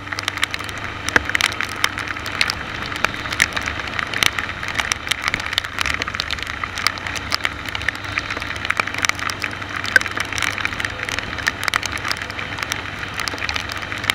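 Rain pattering and crackling as drops strike the camera housing during a ride on a wet road, dense irregular ticks over a steady low hum of road and wind noise.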